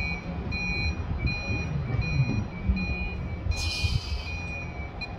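Vehicle reversing alarm beeping steadily, about two beeps a second, over a low rumble, with a short hiss about three and a half seconds in.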